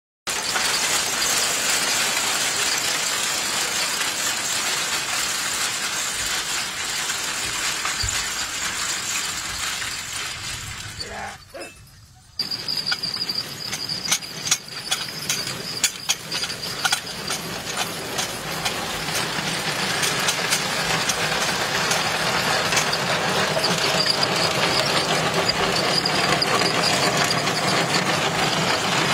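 Mule-drawn potato digger working through the soil: steady metal clattering and rattling with some squeaking. The sound drops away briefly near the middle, comes back with a run of sharp clanks, then settles into a steadier, slightly louder clatter.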